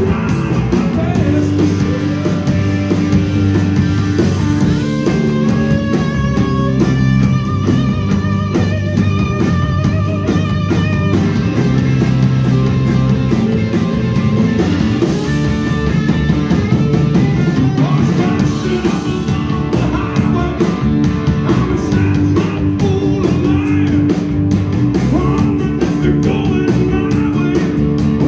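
A live rock band with electric guitars, bass and drum kit plays a fast rock-and-roll song. A sustained melodic line with vibrato stands out over the band in the middle.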